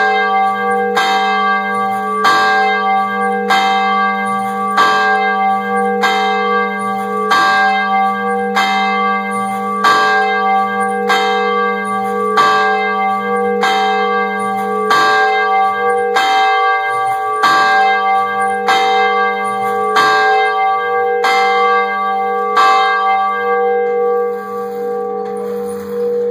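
A single swinging church bell ringing, its clapper striking about once every 1.2 seconds, each stroke over the bell's continuous hum. The strokes stop about 23 seconds in and the bell rings on, fading.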